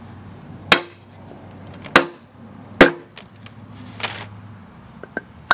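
A mallet strikes a wooden block three times, sharp separate blows about a second apart, driving a two-piece aluminum engine-cradle bushing home.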